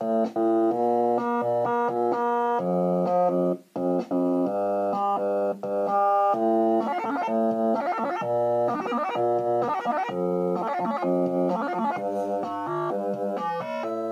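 Oscilloscope music: electronic pitched tones whose stereo waveform draws the rotating wireframe cubes on the oscilloscope screen, the notes changing every fraction of a second. It breaks off briefly just after the start and again near four seconds, and wavers through a warbling stretch in the middle.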